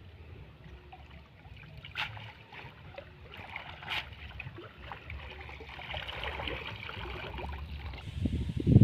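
Water splashing and sloshing as a fishing net is swished and dragged through shallow stream water, with two sharp splashes about two and four seconds in. Near the end the splashing grows louder as the net is lifted out and water pours off it.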